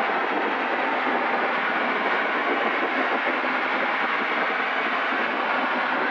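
Steady in-flight cabin noise of a Zenith CH750 Cruzer light airplane: engine, propeller and slipstream heard from inside the cockpit as an even, unbroken rush.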